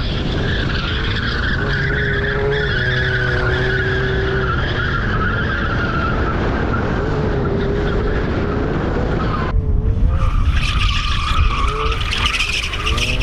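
Car engine revving up and down with tyres squealing as the car slides in a drift. About nine and a half seconds in the sound cuts abruptly to another recording of the same kind: an engine revving and tyres squealing.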